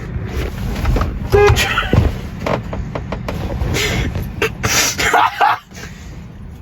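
Car horn giving a short toot about a second and a half in, followed by a few seconds of loud, abrupt noisy sounds.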